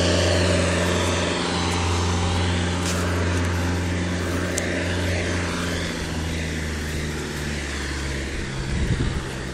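Truck-mounted forklift's engine running with a steady low drone that slowly fades as the forklift drives away.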